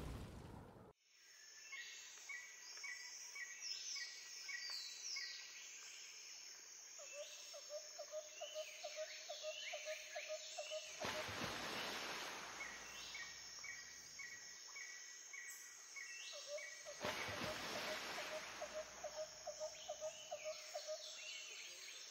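Several birds calling faintly: rows of short high chirps and runs of fast, lower pulsed notes, repeating. Two brief rushes of noise come about eleven and seventeen seconds in.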